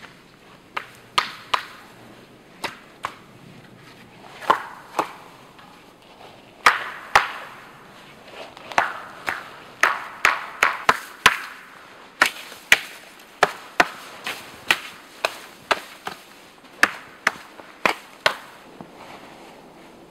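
Sharp chops of a blade striking a thin wooden pole: a long, irregular series of cuts, coming several a second at the busiest stretch in the middle.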